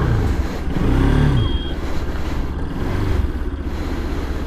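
Bajaj Pulsar RS200 single-cylinder motorcycle engine pulling away at low speed. Its pitch rises and falls about a second in and again near three seconds as the bike is ridden off and turned onto the road.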